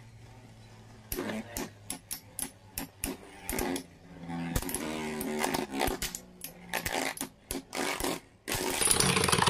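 Rock Leone and Flame Sagittario metal Beyblades spinning in a plastic stadium: a steady whir, then from about a second in a run of sharp metal clacks as the tops collide again and again. Near the end a denser rasping run comes as Flame Sagittario wobbles low on spin.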